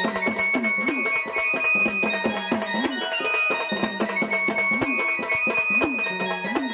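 Marathi gondhal folk music: a drum played in a quick rhythm with pitch-bending strokes, over a steady drone and a high, reedy sustained melody.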